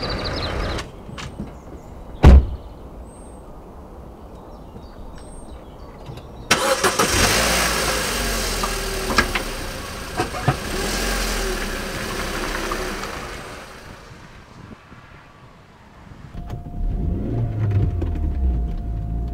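A car door shuts with one loud thud about two seconds in. About four seconds later a car engine starts abruptly and runs, fading out after about seven seconds. Near the end a low engine rumble returns, with a faint steady tone over it.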